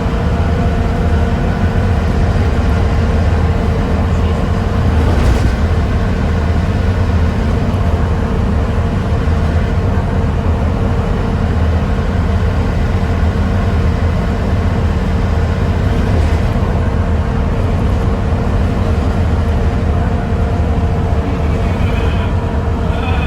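Volvo B7TL bus's diesel engine running steadily under way, with a constant steady whine on top: the "hoovering" sound. A brief knock comes about five seconds in.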